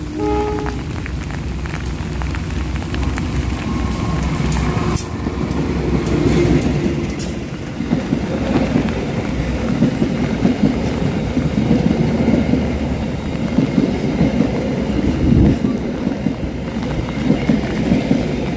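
Diesel-locomotive-hauled passenger train passing straight through a station on the near track: the rumble of the approaching locomotive, then wheels clattering over the rails as the coaches roll by, in heavy rain.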